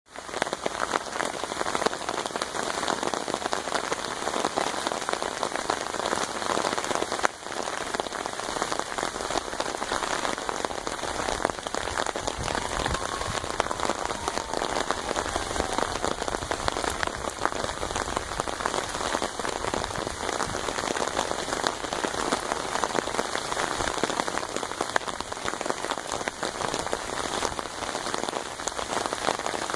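Steady rain drumming on an umbrella overhead: a dense, even patter of drops. The patter briefly drops away for a moment about seven seconds in.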